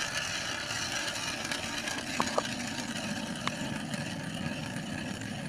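Powered ice auger drilling into river ice, a steady motor drone with a whine. A few light clicks of handling near the middle.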